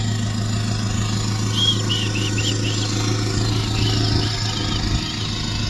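Ford Ranger pickup's engine idling steadily, with a bird calling a quick series of short chirps in the middle.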